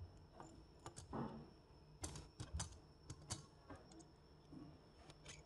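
Faint irregular clicks and light metal taps from handling a soldering iron's tip and knurled retaining nut as they are taken off the handle, most of them between one and three and a half seconds in.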